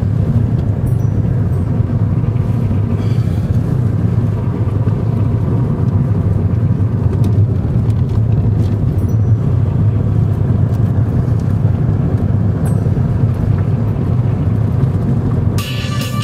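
Car engine and tyre noise heard from inside the cabin while driving, a steady low rumble. Music comes in near the end.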